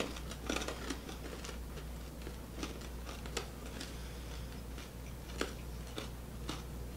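Faint scattered crunches and clicks of people chewing sticky, crunchy green chili peanut brittle, over a steady low hum.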